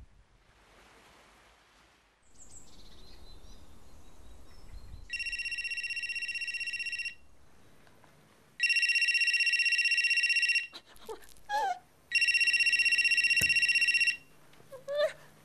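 Electronic telephone ringer trilling in rings of about two seconds with short gaps: a fainter first ring about five seconds in, two louder rings, and a fourth beginning near the end.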